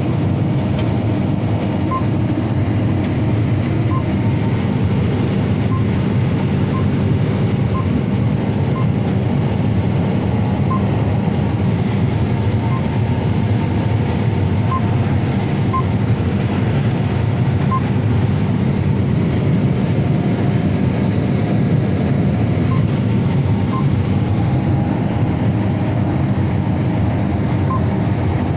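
Combine harvester harvesting corn, running with a steady mechanical drone. Faint short ticks come every second or two.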